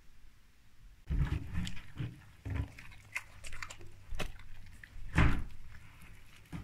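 A Labrador-mix dog comes to its stainless steel food bowl in a wooden stand and starts eating. Irregular clinks, knocks and eating noises begin about a second in, and the loudest knock comes about five seconds in.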